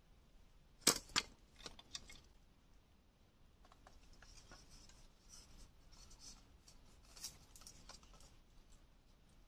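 Sharp wooden clicks and clacks of bamboo knocking against bamboo as the bamboo-tube mouse traps are handled. The two loudest clicks come about a second in, a few more follow shortly after, and then come scattered lighter clicks with one sharper click near the end.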